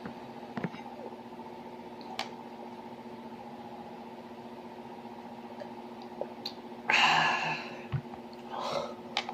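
A steady electrical hum with a few faint clicks. About seven seconds in comes a short loud rush of noise, and a fainter one near the end.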